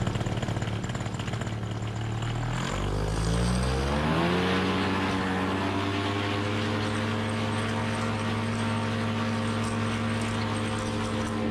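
Paratrike's paramotor engine and propeller running at idle, then opened up to full throttle about three seconds in: the pitch climbs over a second or two and then holds steady at takeoff power while the wing comes up overhead.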